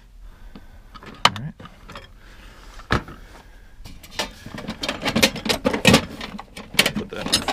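Metal hand tools knocking and clinking as they are handled and put down: a couple of separate knocks, then a busy run of clattering from about halfway through.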